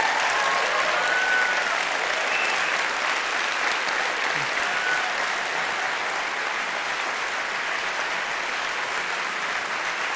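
A large auditorium audience applauding at length, the clapping easing slightly toward the end.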